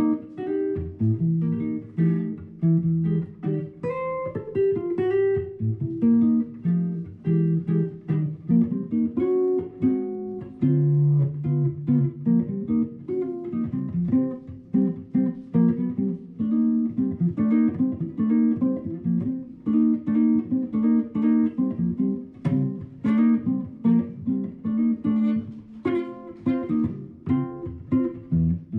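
Guitar music: a plucked acoustic guitar playing a steady run of notes and strummed chords.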